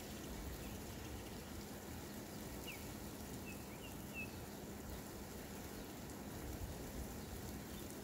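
Steady rain falling on a street and lawns, an even hiss. A bird gives a few short, high chirps about three to four seconds in.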